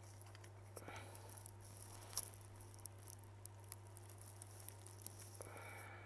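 Small clicks and light rattles of a smartphone and its parts being handled on a repair bench, with one sharper click about two seconds in, over a steady low electrical hum.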